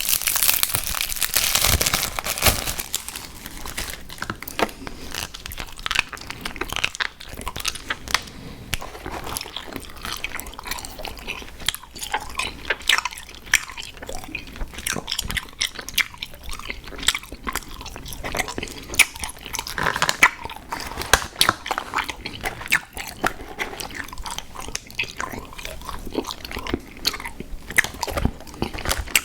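Close-miked chewing and biting of sour gummy worms cereal: irregular crunches and small sticky clicks. A louder noisy burst comes near the start.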